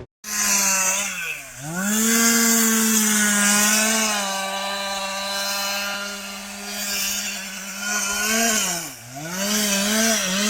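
Chainsaw engine running at high revs, cutting wood. Twice the engine note drops sharply and climbs back up.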